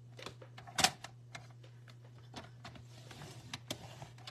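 Paper trimmer and cardstock being handled: a sharp plastic click about a second in, then scattered small clicks and paper rustling as the card is positioned on the trimmer for scoring.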